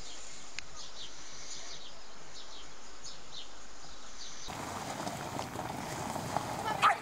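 Small birds chirping over a steady outdoor background, a short high call every half second or so. About four and a half seconds in, the sound switches to a louder, rougher outdoor noise, with one sharp, short cry near the end.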